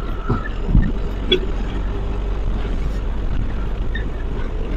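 Bus running on a road, a steady low rumble of engine and road noise with a couple of dull knocks in the first second.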